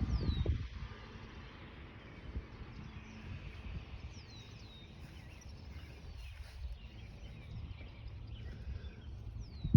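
Outdoor ambience: a bird gives a few short, high, downward-sliding chirps over a low steady rumble. A louder low rush comes at the start and a sharp thump at the very end.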